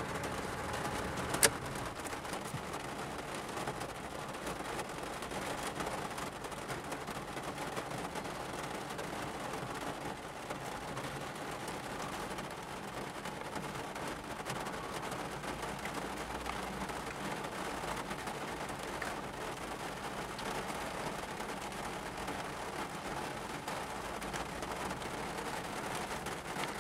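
Heavy rain falling steadily on a car's roof and windshield, heard from inside the cabin. A single sharp click comes about a second and a half in.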